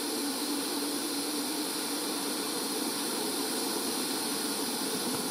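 Ninja Foodi pressure cooker hissing steadily as steam vents from its lid valve while it comes up to pressure.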